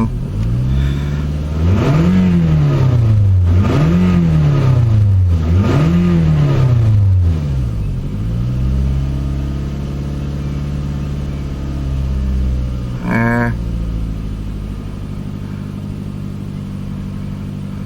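2005 Toyota Camry engine revving up and back down three times, about two seconds apart, then settling to a steady, slightly high idle. This is the engine relearning its idle after a throttle body cleaning and battery disconnect, which had left it surging.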